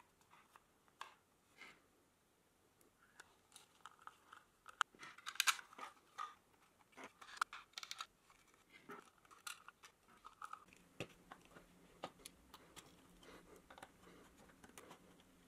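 Faint, scattered clicks, taps and rustles of hands handling circuit boards, jumper wires and a 3D-printed PLA case, with a screwdriver tightening small screws.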